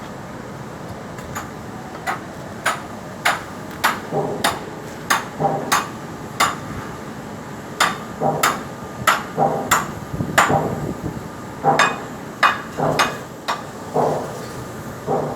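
A hammer striking metal over and over in an uneven rhythm, about one to two blows a second, some blows leaving a brief ring.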